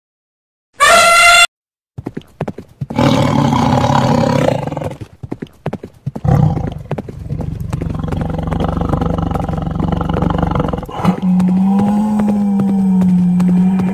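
Added animal sound effects: a short high call about a second in, then a tiger roaring for several seconds among scattered clicks like hoofbeats, ending in a long, steady low growl over the last few seconds.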